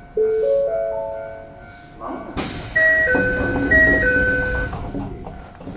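Toei 5300-series train's doors opening at a station stop: a loud rush of air from the door gear about two seconds in, with a two-note falling door chime sounding twice over it. Just before it, a short rising four-note chime.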